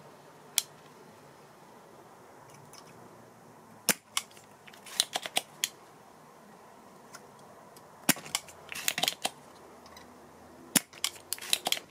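Spring-loaded desoldering pump (solder sucker) snapping and clicking again and again as it is cocked and fired to suck solder from a chip's pins, in clusters of sharp snaps. A low steady hum from the transformer soldering gun runs underneath.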